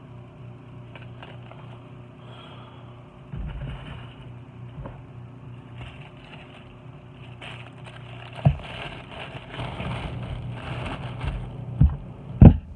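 Paper and packaging being handled close to the microphone: rustling that grows louder in the second half, with three sharp knocks, the loudest near the end, over a steady low hum.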